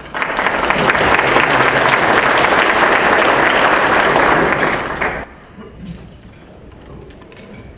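Audience applauding, a dense steady clatter of clapping that cuts off abruptly about five seconds in, leaving faint room noise.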